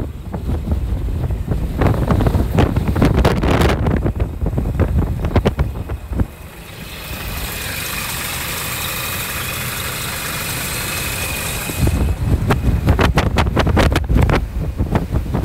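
Wind buffeting the microphone in gusts. From about seven seconds in until about twelve, close to the open engine bay, a Scania R480 truck's diesel engine idles as a steady, even hiss with a thin high whine.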